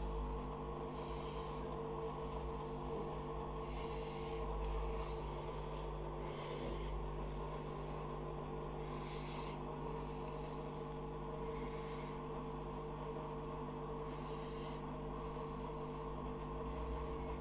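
A steady electrical hum, with soft hissing puffs every two to three seconds.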